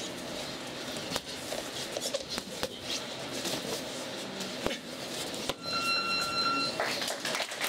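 Boxing gym noise with scattered sharp thuds of gloved punches, and an electronic round timer beeping once, steady in pitch, for about a second about six seconds in.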